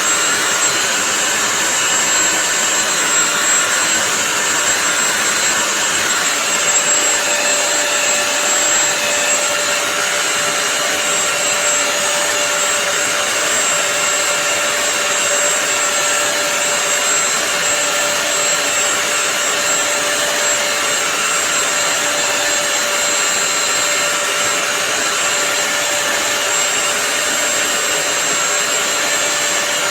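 Bissell CrossWave 3-in-1 wet-and-dry floor cleaner running steadily, a rushing motor noise with a steady high whine.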